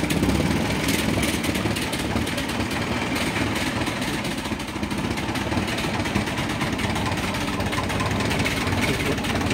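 1954 Ferguson TO-30 tractor's Continental four-cylinder gasoline engine idling steadily just after a start, its carburetor freshly set back to factory mixture-screw settings.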